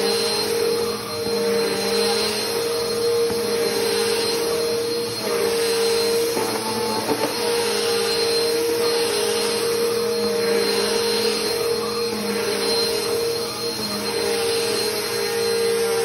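Upright vacuum cleaner running steadily, its motor giving a constant hum with airflow noise as it is pushed over a rug, with a brief rattle near the middle.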